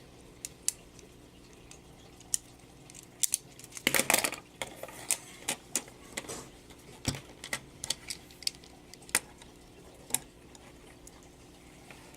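A LEGO butterfly knife being flipped: its plastic handles click and clatter in scattered, irregular taps, with a short flurry of rattling about four seconds in.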